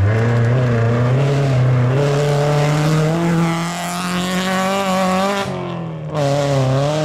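Rally car engine pulling hard on a gravel stage, its note climbing steadily, with gravel spraying from the tyres. About five and a half seconds in the note drops off briefly, then picks up again.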